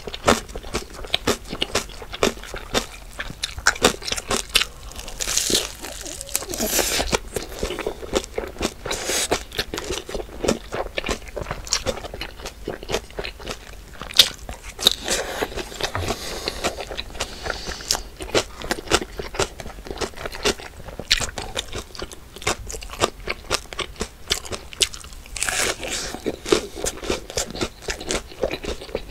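Close-miked eating: rapid crunchy bites and chewing of crisp food, dense with irregular small clicks, broken a few times by longer noisy mouth sounds.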